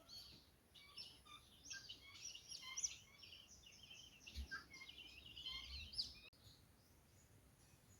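Faint bird song: a rapid run of high chirps and twitters that stops about six seconds in.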